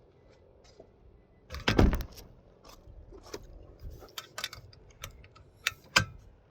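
Metal clinking and clattering as small hardware and tools are handled. It starts with a loud clatter about one and a half seconds in, then scattered light clicks and knocks, with one sharp knock near the end.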